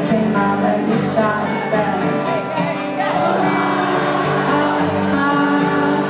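Live song: a woman singing into a microphone with guitar accompaniment, loud and continuous.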